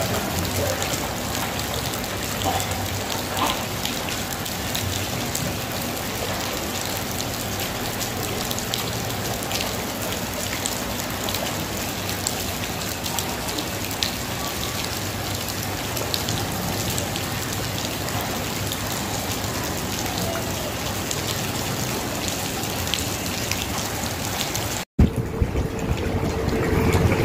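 Steady rain falling on shallow floodwater: an even hiss with many small drop ticks. Near the end it breaks off in a brief dropout, and a louder recording follows with a steady hum.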